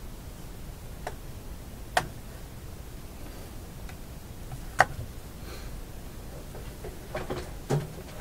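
Sharp clicks and light taps of hands handling wires and parts in a tube radio chassis, over a steady hiss: a click about a second in, a louder one a second later, the loudest near the middle, then a quick run of clicks near the end.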